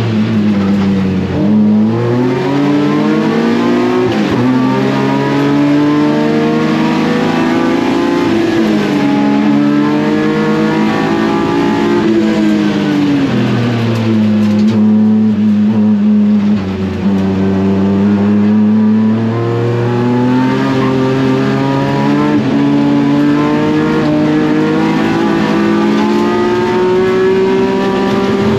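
Race car's S54 inline-six engine on track, pulling up through the revs and dropping back several times as the car accelerates and brakes.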